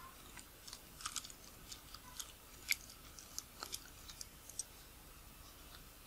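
Light metallic clicks and ticks of a small screwdriver and fingers working the rear mount parts of a Nikkor 50mm f/1.4 AI-s lens. The clicks come irregularly, a dozen or so, the loudest a little under three seconds in, and stop about four and a half seconds in.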